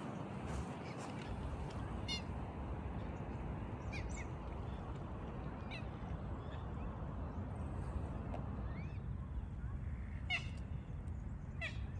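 Birds giving short calls every couple of seconds over a steady background rush of outdoor noise.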